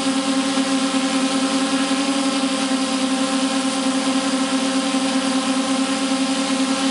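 Electric motors and propellers of a radio-controlled camera aircraft running steadily in flight, close to the onboard microphone: a constant, even-pitched hum with a fluttering edge.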